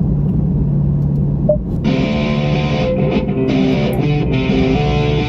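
A steady low drone of the Dodge Charger Scat Pack cruising, heard inside the cabin. About two seconds in, a music track comes in over it: plucked electric guitar playing sustained notes.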